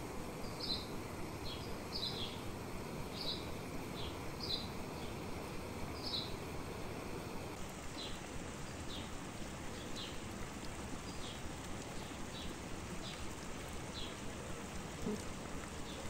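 Steady rush of running water from a fast mountain stream, with a bird repeating a short high chirp over it about once a second.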